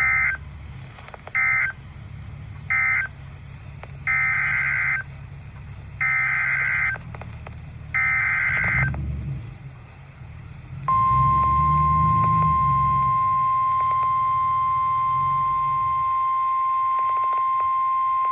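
Emergency Alert System tones from a weather radio broadcast. First come three short warbling data bursts, the end-of-message code closing one alert. Then come three longer data bursts, the header of the next alert, and about eleven seconds in the steady single-pitch weather radio alert tone begins and holds.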